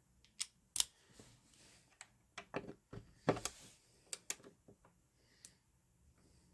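Irregular small clicks and taps of wires being worked loose and pulled out of a low-voltage lighting power bus, about a dozen faint sharp clicks spread unevenly.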